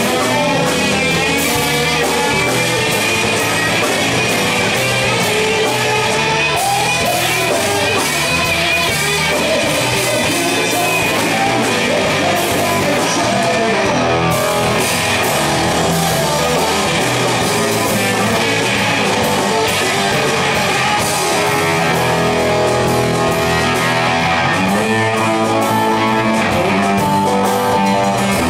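A live rock band playing: electric and acoustic guitars over drums, with singing.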